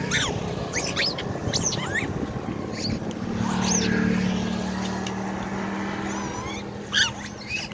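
Macaques giving short, high-pitched squeaks every second or so over a low road rumble, the loudest near the end. An approaching motorcycle's engine hums steadily from about halfway through.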